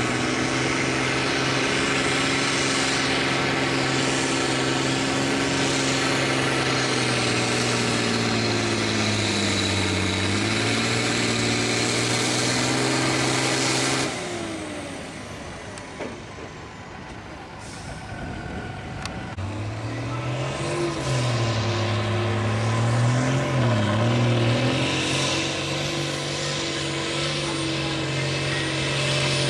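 Farm tractor diesel engines working under full load while pulling a weight-transfer sled. The first runs at a steady pitch that sags about ten seconds in, then cuts off suddenly about fourteen seconds in. After a quieter stretch a second tractor's engine comes in about twenty seconds in, its pitch dipping and rising.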